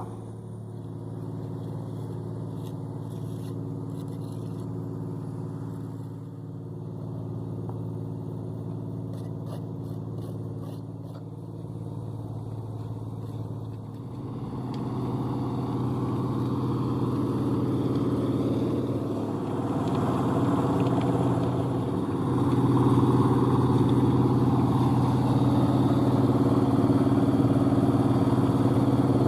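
Engine of a small concrete mixer running steadily, a continuous engine hum that gets louder about halfway through and steps up again a few seconds later.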